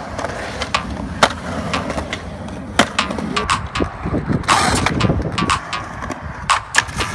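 Skateboard wheels rolling over concrete with a steady rumble, broken by sharp clacks of the board and trucks striking the ground. There is a louder scrape about four and a half seconds in.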